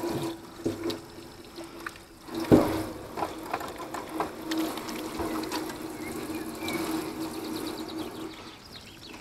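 Water running from a tap into a stainless-steel sink while hands are washed under it, with small splashes and clicks and one sharp knock about two and a half seconds in.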